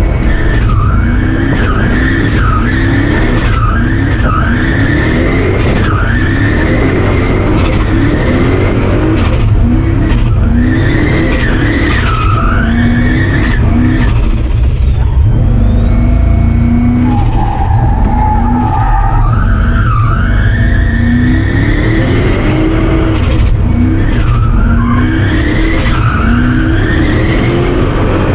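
Turbocharged V8 Dodge pickup drifting: the engine revs up and drops back over and over while the tyres squeal.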